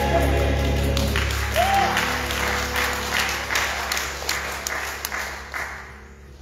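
A choir's song ends on a held chord about a second in, and the congregation breaks into applause that dies away near the end.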